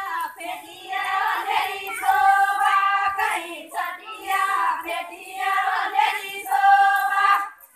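Women singing a Banjara (Lambadi) devotional song together, in phrases of long held notes, breaking off shortly before the end.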